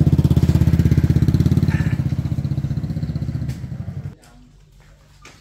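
A small engine running close by with a fast, even putter, cutting off abruptly about four seconds in.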